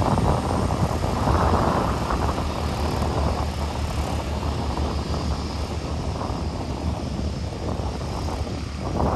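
Boeing 747 freighter's four jet engines running as the aircraft rolls away down the runway: a loud, steady, low rumble that slowly fades a little.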